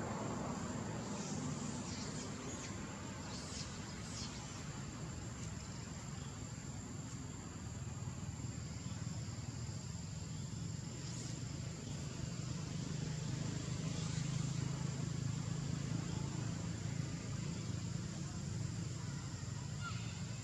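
Forest ambience: a steady, high-pitched insect drone over a low rumble, with a few faint short chirps.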